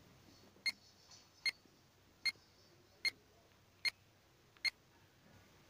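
Quiz countdown-timer sound effect: six short, evenly spaced ticks with a slight ring, a little under a second apart, over near silence.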